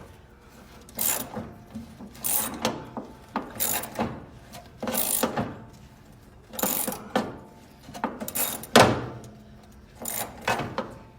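Hand ratchet winch (come-along) being worked in short strokes, each a brief burst of pawl clicks, about one a second at an uneven pace, while it hauls the wrecked Jeep truck.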